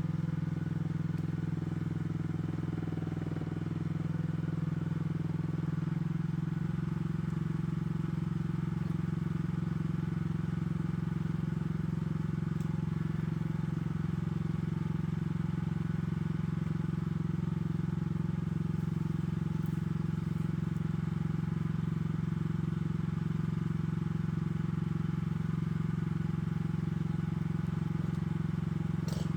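AGT LH12R mini excavator's engine running steadily, settling to a slightly different pitch about six seconds in as the machine works.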